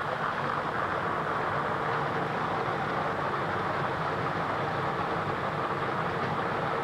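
Lottery drawing machine mixing its balls: a steady, dense clatter of many balls tumbling against each other and the clear sphere.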